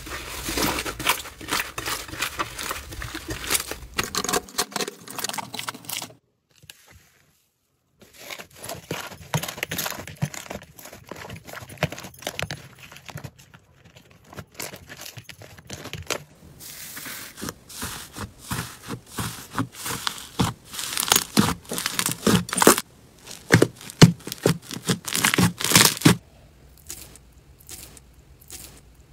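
Hands pulling, tearing and squeezing thick slime, with dense, irregular sticky crackling and popping clicks. There is a silent gap of about two seconds six seconds in, and near the end the sound turns quieter as a finger presses into a bowl of green jelly-bead slime.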